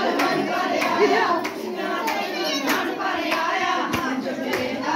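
A group singing a Hindu devotional song (kirtan) together, with hand clapping keeping a steady beat.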